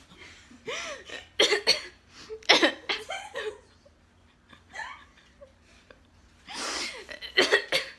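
A young woman laughing helplessly in several separate fits, with short quiet pauses between them and a longer burst near the end.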